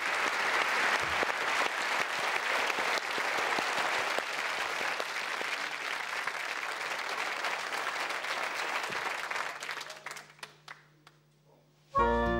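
Studio audience applauding, the clapping dying away to a few last claps about ten seconds in. After a moment's hush, music starts just at the end.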